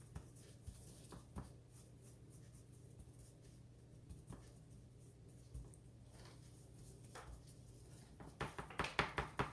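Gloved hand patting seasoning into raw turkey cutlets: a few faint soft pats, then a quick run of pats, about five a second, near the end. A low steady hum sits under it.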